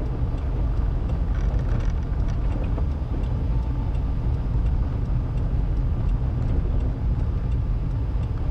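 Steady low rumble of a vehicle driving, heard from inside the cabin, with tyre noise from rolling over a rough dirt and gravel road.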